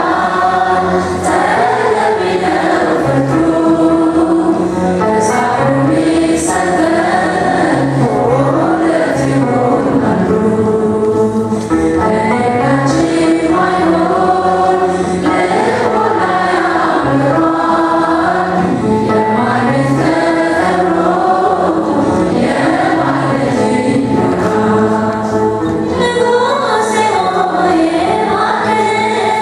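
Ethiopian Orthodox Tewahedo mezmur (hymn) sung live by a woman's voice through a microphone, joined by a choir.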